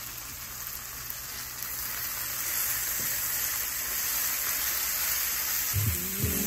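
Vegetarian filling with freshly added pico de gallo sizzling steadily in a hot nonstick frying pan as it is stirred with a slotted spatula. Music comes in near the end.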